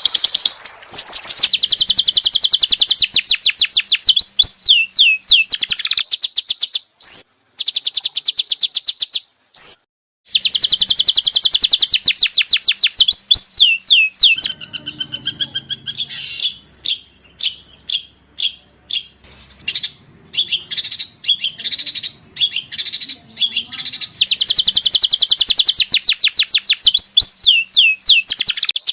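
Songbird song played as a masteran, a training recording for cage birds: long, fast, high trills broken by quick upward-sweeping whistles, with a short passage of lower notes about halfway. The same run of phrases repeats three times, as a looped recording.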